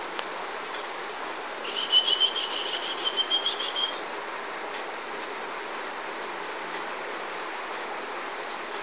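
A squirrel calling with a high-pitched, rapidly pulsed trill lasting about two seconds, starting a couple of seconds in, over a steady background hiss and a few faint clicks.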